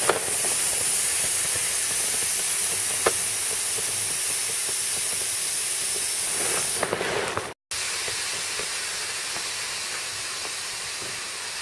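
Air rushing out of an Exped SynMat UL 7 sleeping pad's open flat deflation valve as weight presses down on the pad: a steady hiss that slowly weakens as the pad empties. It drops out for an instant about seven and a half seconds in, then carries on fainter.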